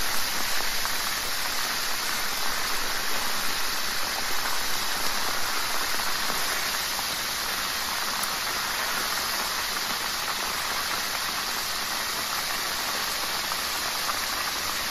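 Crab shells deep-frying in hot oil, a steady sizzling hiss.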